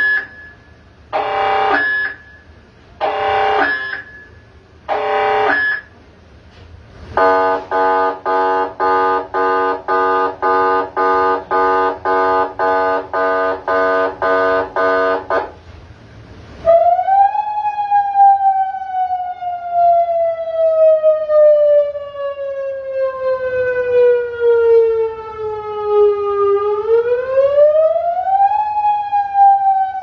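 100-watt 8-tone electronic siren sounding through horn loudspeakers, switched through three of its tones. First come steady pitched blasts about a second long with second-long gaps, then a fast pulsing tone about twice a second. After a short break it gives a slow wail that rises quickly, sinks slowly for several seconds, then rises and falls again.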